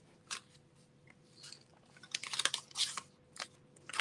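Folded cardstock card rustling and crackling as it is handled: a short crackle about a third of a second in, then a louder cluster of crinkling between two and three seconds in and a few more near the end.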